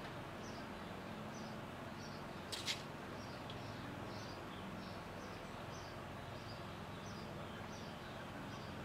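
A small bird chirping repeatedly, short high notes about twice a second, over a steady outdoor hiss; one sharp click stands out about two and a half seconds in.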